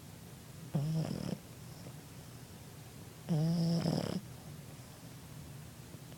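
Boston terrier snoring in its sleep: two short snores, each with a clear pitch and lasting under a second, about two and a half seconds apart.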